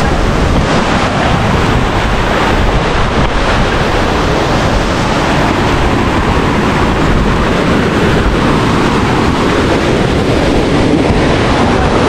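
Waterfall pouring close by: a loud, steady roar of rushing water.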